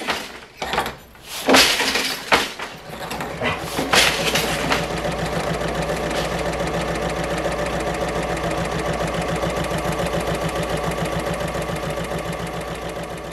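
A few loud, irregular knocks from a wooden floor loom being woven, then an electric sewing machine running steadily at speed, its fast regular stitching rhythm fading out near the end.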